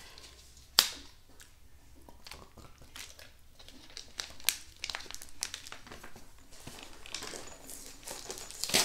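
Small plastic hardware bags crinkling and rustling as they are handled in a cardboard box, with a sharp click about a second in.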